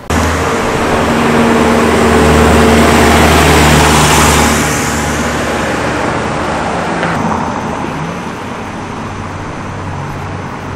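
A motor vehicle passing close: a steady engine hum with tyre and road noise that swells to its loudest about three to four seconds in, then fades into a lower traffic hum.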